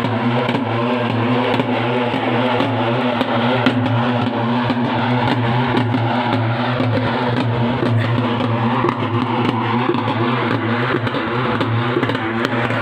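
Folk drum ensemble playing a rapid, continuous beat: stick-struck barrel drums and a frame drum.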